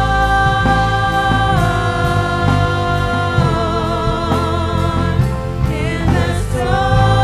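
Live worship band: women singing long held notes, one wavering with vibrato in the middle, over drums, electric bass guitar and keyboard.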